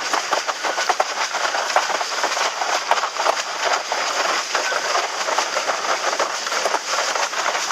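Windsurf board sailing fast in strong wind: a steady rush of wind and water with rapid, irregular slaps and spray as the hull skips over chop.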